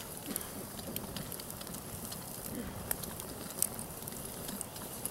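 Wood campfire crackling, with scattered small clicks and a couple of louder pops near the middle.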